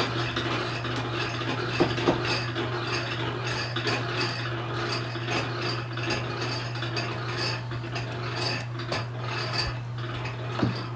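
Electric hot uncapping knife slicing and scraping wax cappings off a frame of honeycomb: an uneven rasping scrape with small clicks, over a steady low hum.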